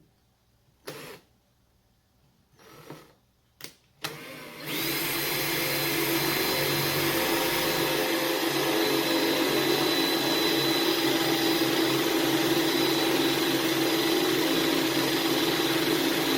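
A few short handling knocks, then about four seconds in an electric motor starts up and runs steadily at high speed with a constant whine.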